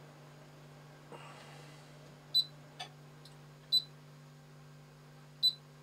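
Hantek DSO2C10 digital oscilloscope giving three short, high key-press beeps as its front-panel menu buttons are pressed, with a couple of faint button clicks between them. A steady low hum runs underneath.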